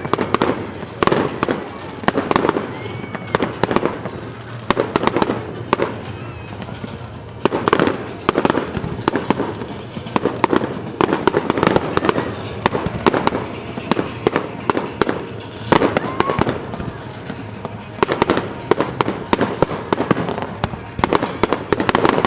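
Fireworks bursting in quick succession: many sharp bangs and crackles coming in clusters, with hardly a pause.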